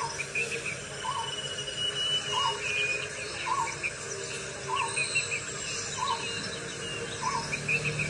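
Wild birds calling in hillside forest. One repeats a short note about once a second, over scattered higher chirps from other birds.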